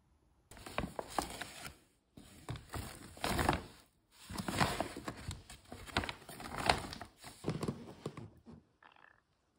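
Rustling and handling noise with short knocks, as packaged gift items and a bag are handled, in three stretches that cut off abruptly.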